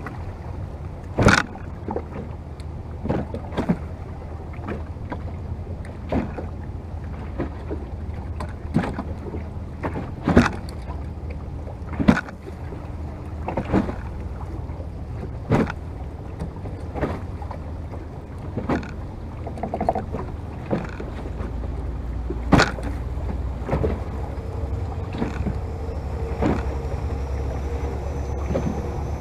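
Choppy water slapping against the bow of a wooden Venetian boat: a sharp knock about every one and a half to two seconds over a steady rush of water and wind. In the last few seconds the low engine hum of a passing motor vessel joins in.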